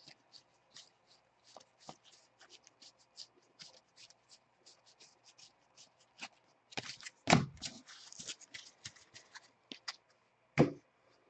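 Trading cards being flipped through by hand: a steady run of soft, quick card-edge ticks. Two louder knocks come about seven seconds in and near the end.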